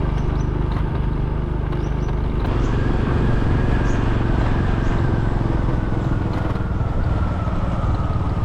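Motorcycle engine running while being ridden along a road. Its note steps up about two and a half seconds in, then slowly eases down.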